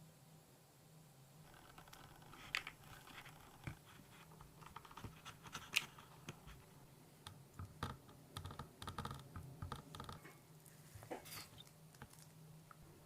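Faint, irregular clicks, taps and light scrapes of small objects being handled on a work surface, over a low steady hum.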